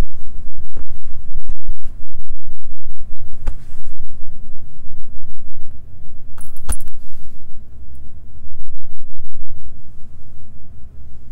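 Loud low throbbing rumble with scattered sharp clicks, cutting off suddenly at the end.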